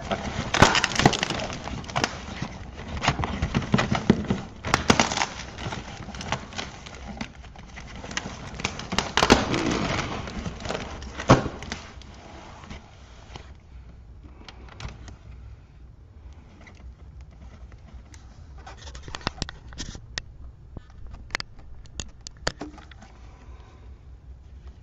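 Cardboard shipping box and its plastic wrap being pulled and torn open, crackling and rustling with sharp clicks for about the first twelve seconds. After that it goes quieter, with scattered clicks of plastic CD jewel cases being handled.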